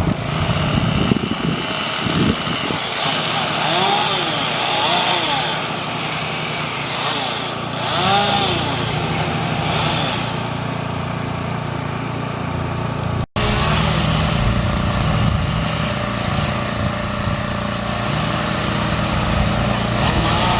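Tree-trimming crew's power equipment: an engine runs steadily while a chainsaw revs up and falls back several times. The sound cuts out for an instant a little past halfway, then the engine carries on.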